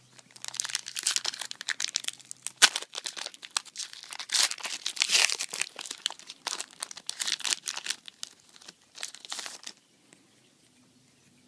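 Foil wrapper of a Yu-Gi-Oh booster pack being crinkled and torn open, a dense run of crackling with sharp snaps. It stops about ten seconds in.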